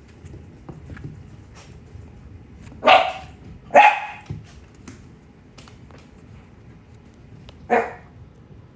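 A dog barking: two short barks about a second apart, then a third a few seconds later.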